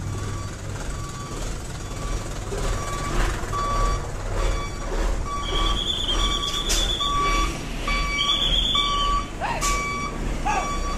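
Heavy truck's reversing beeper sounding a steady, regularly repeated single-tone beep as the truck and trailer back up, over the low running of its diesel engine. In the second half a higher steady tone sounds twice, and there are two short sharp sounds.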